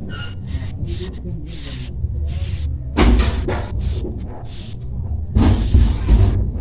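Cotton fabric rustling and brushing as hands smooth and shift a blouse over a length of cloth, with louder rustles about three seconds in and again near the end, over a steady low rumble.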